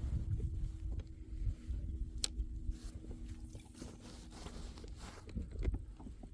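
A low, gusting rumble of wind on the microphone, stronger in the first half, over a faint steady hum. A few light clicks and knocks come from handling in the boat, the sharpest about two seconds in.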